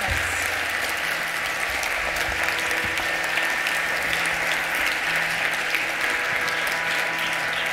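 Large audience applauding: a dense, steady patter of many hands clapping that keeps an even level throughout.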